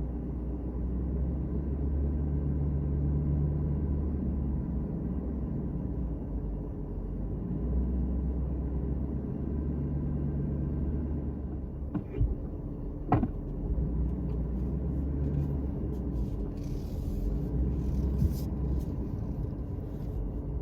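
Low, steady rumble of a car moving slowly, with two sharp knocks about a second apart just past the middle and a brief hiss near the end.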